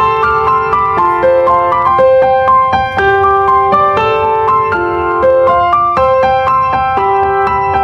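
Background music: a light piano-like keyboard melody of short, evenly paced notes.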